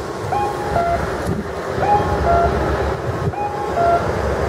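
Accessible pedestrian crossing signal's sound device, playing a cuckoo-style two-tone electronic call: a higher, slightly rising note then a lower one, repeating about every one and a half seconds, three times, while the walk light is green. Steady traffic and street noise runs underneath.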